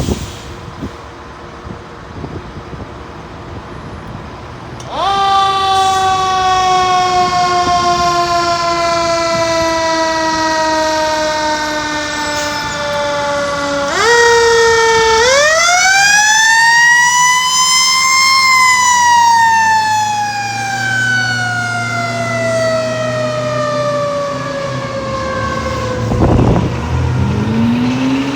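Fire truck siren wailing: from about five seconds in, a long tone falls slowly in pitch. About halfway through it winds up again to a high peak and then falls off slowly over the next several seconds.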